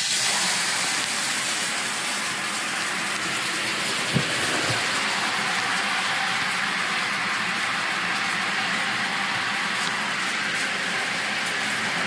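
Water running hard into a bathtub, pouring onto a waterproof duffel bag to soak it, a steady hissing rush. A small knock about four seconds in.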